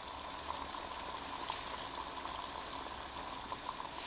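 Water at a steady boil in a 22 oz ultralight cook pot over a methanol-fuelled capillary action soda-can stove. It makes an even bubbling hiss with scattered small pops.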